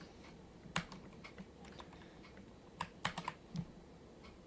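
Keys being pressed on a Keychron K2 mechanical keyboard with Gateron Brown switches: scattered clicks and key strokes, the loudest just under a second in and a cluster around three seconds in.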